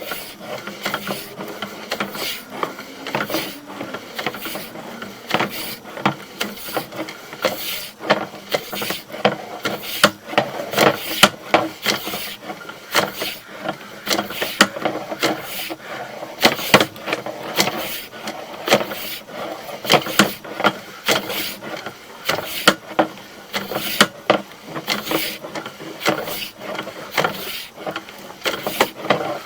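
Sewer inspection camera and its push cable being fed through the sewer line: an irregular run of knocks, clicks and scraping as the camera head and cable rub and bump along the pipe.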